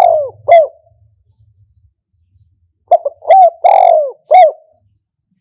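Spotted dove cooing: the end of one phrase of coos at the start, then, about three seconds in, a full phrase of four or five coos, with the longest coo in the middle.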